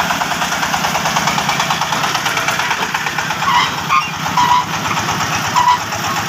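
Diesel engine, rated 26 hp, of a mobile sawmill running steadily at idle with a rapid, even chugging. A few short high chirps sound over it about halfway through.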